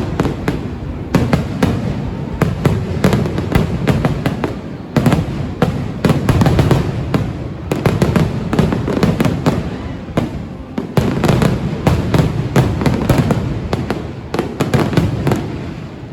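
Aerial fireworks bursting in rapid, continuous succession: overlapping booms and sharp cracks with hardly a break, heaviest around five to seven seconds in and again around eleven to fifteen seconds in.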